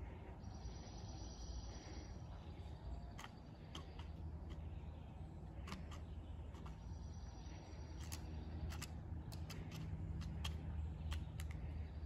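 Pileated woodpecker pecking into a wooden landscape timber to dig out an ant nest: irregular single knocks, not a drumming roll, coming more often in the second half.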